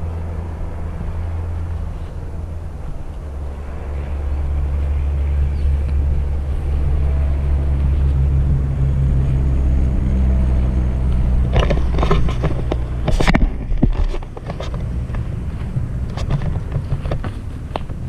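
Wind buffeting a body-worn camera's microphone as a steady low rumble. In the last third, footsteps scuff and crunch on the rocky path, with scrapes against the brush.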